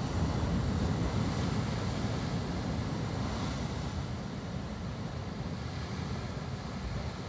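Storm surf breaking and washing against rocky sea cliffs, with gusting wind buffeting the microphone; slightly louder near the start.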